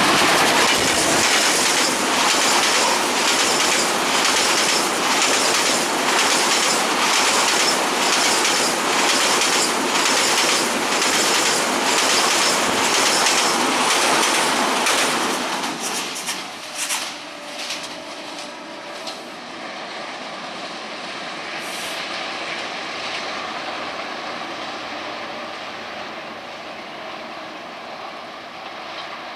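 Passenger train coaches rolling over a steel truss bridge: a loud steady rumble with a regular clickety-clack of wheels over rail joints. About halfway through it drops to a quieter, steadier rolling sound with a few scattered knocks.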